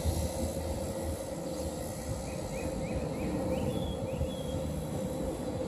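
Steady outdoor rumble with a faint steady hum, and a bird chirping a quick run of short rising notes in the middle.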